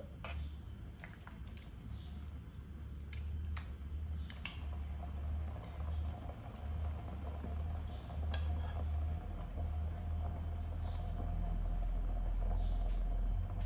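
Metal ladle stirring a pot of chicken soup, clinking lightly against the pot a few times in the first few seconds. After that only a low steady hum remains, slowly growing louder, with a faint click now and then.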